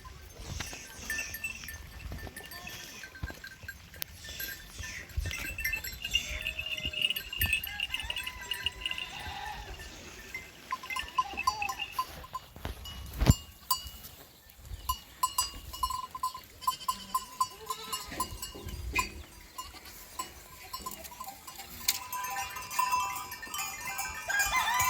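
A flock of sheep and goats bleating now and then, with livestock bells clinking.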